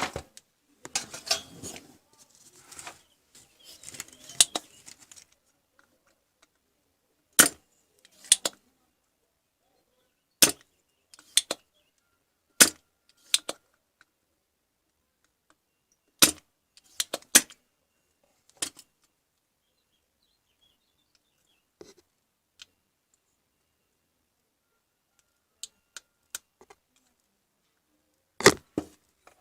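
Scattered sharp clicks and knocks of hard objects being handled, some in quick pairs, with a stretch of rustling clatter near the start.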